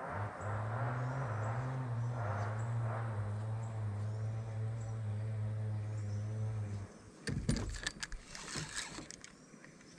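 A small engine running steadily at a constant pitch, cutting out abruptly about seven seconds in. A few sharp clicks and knocks follow.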